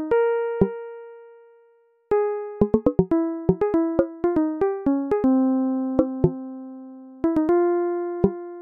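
Background music: a sparse electronic keyboard melody of single notes that strike and fade. One note dies away near the start, then a quick run of notes begins about two and a half seconds in and gives way to slower, longer-held notes.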